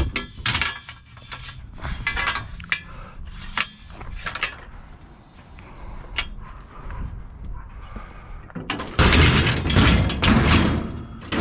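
Metal clanks and rattles from a scrap metal bed frame being handled, in a string of sharp knocks, then a louder, longer clatter about nine seconds in.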